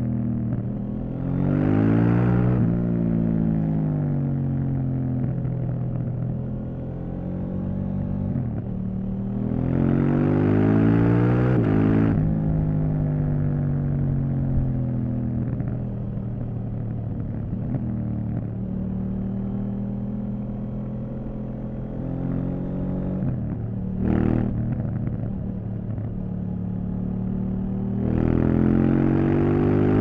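KTM 790 Duke's parallel-twin engine under way at road speed. It accelerates hard in louder bursts, with the pitch rising steeply, about a second in, around ten seconds in, briefly around 24 seconds and again near the end. Between these it drops back and runs steadier as the throttle eases and gears change.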